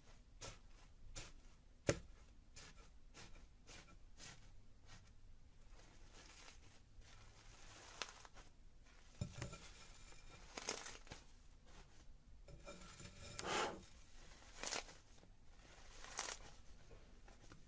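Hands working slime-making materials: scattered small clicks and crackles, with a few louder crunching, tearing-like rustles in the second half.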